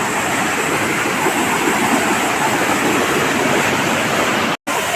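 Steady, loud rush of falling water from a waterfall, broken by a split-second gap near the end.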